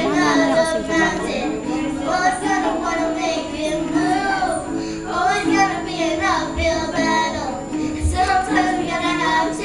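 A young girl sings a slow ballad into a microphone in phrases with held notes, accompanied by a strummed acoustic guitar.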